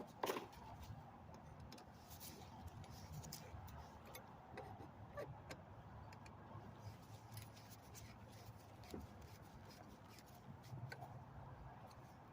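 Faint, scattered small clicks and ticks of a screwdriver and hands working on the mounting screws of a new carburetor on a string trimmer, with one sharper click just after the start.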